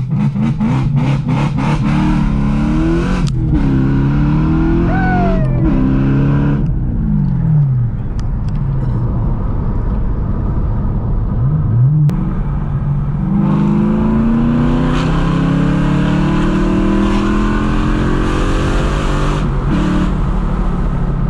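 BMW E92 M3's 4.0-litre V8 through a straight-piped exhaust, heard from inside the cabin, revving up through several quick gear changes, then falling back to a low drone. About twelve seconds in it pulls again and holds steady at higher revs.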